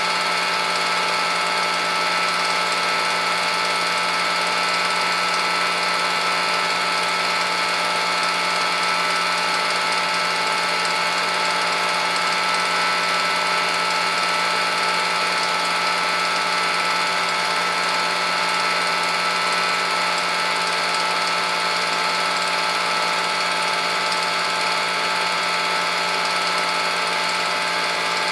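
Film projector running: a steady mechanical whir with several fixed tones that never changes in level.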